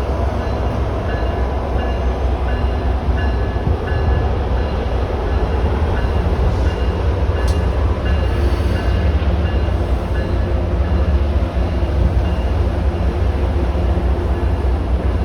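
Diesel locomotive rumbling steadily: the GE GEVO-12 engine of an MBTA HSP46, with faint short tones repeating about twice a second above it.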